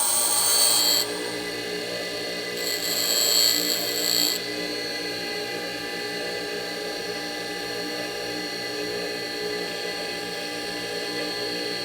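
Tool and cutter grinder running steadily with a constant whine, with two brief, louder, harsher grinding passes in the first four seconds as flutes are ground into a small cutter.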